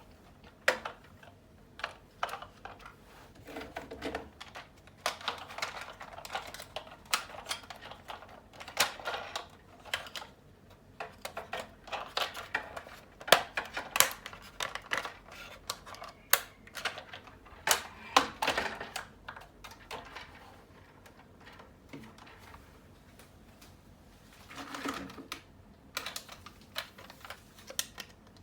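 Irregular clicks, taps and short rustles of small hard parts being handled and fitted together by hand, as in assembling a model kit.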